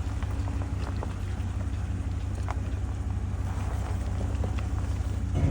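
Truck driving on a rough back road: a steady low engine and road rumble with scattered knocks and rattles.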